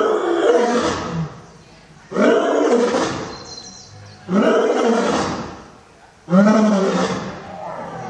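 Male lion roaring: four loud calls about two seconds apart, each starting abruptly and fading away.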